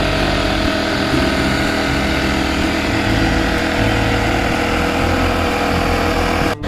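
Champion 2500-watt inverter generator's small engine running steadily at light load during its break-in period. There is a brief break in the sound near the end.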